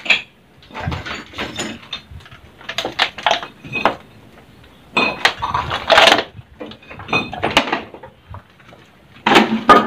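Irregular clinks and knocks of hard ceramic and loose rubble: a detached ceramic urinal being handled and shifted, then footsteps over broken tile and debris.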